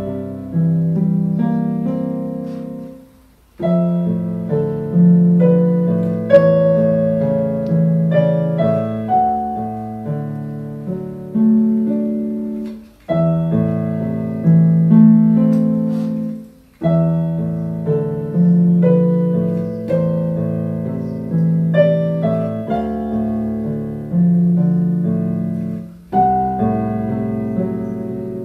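Portable electronic keyboard played solo on a piano voice: a melody over a low accompaniment, in phrases with brief pauses about 3, 13, 17 and 26 seconds in.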